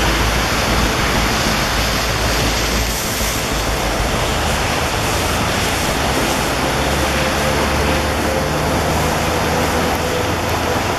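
Floodwater rushing and churning through a drainage canal swollen well above its banks, a loud, steady rush of turbulent water.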